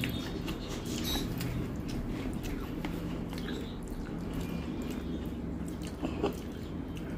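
Close-up eating sounds: chewing, and fingers mixing rice and curry on a steel plate, with small scattered clicks and a soft knock about six seconds in, over a low steady hum.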